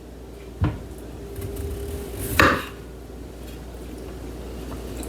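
Two knocks of kitchen things being handled on a counter, about two seconds apart; the second is louder and longer.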